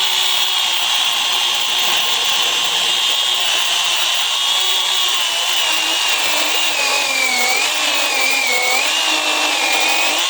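Battery-powered electric chainsaw running with a steady high whine as it cuts into a soft, fungus-rotted log. Its pitch sags and wavers under load in the second half and climbs back near the end.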